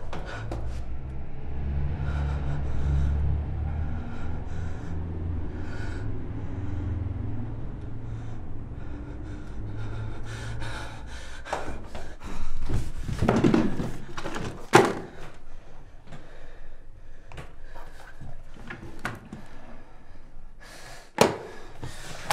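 A low drone for about the first ten seconds, then a handful of knocks and thuds, the sharpest about a second before the end.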